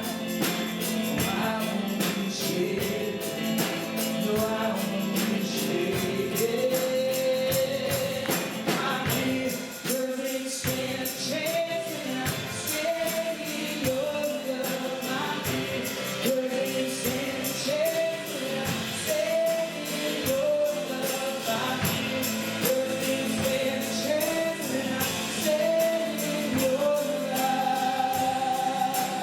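Gospel worship music: voices singing a melody over a band, with a tambourine keeping a steady beat.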